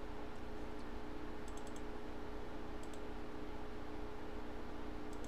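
A few light computer clicks over a steady electrical hum: a small cluster about a second and a half in, then single clicks near the middle and near the end.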